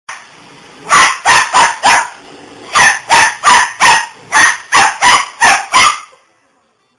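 Pembroke Welsh corgi puppy barking at a Roomba robot vacuum: four quick barks, a short pause, then eight more in a steady run before it stops.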